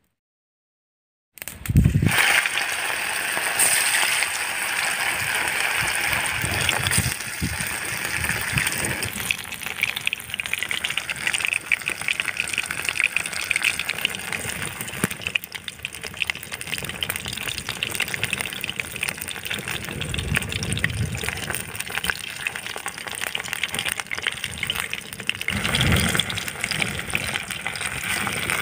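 Masala-coated fish pieces deep-frying in hot oil in a kadai: a loud burst of sizzling as they go in about a second and a half in, then a steady crackling sizzle.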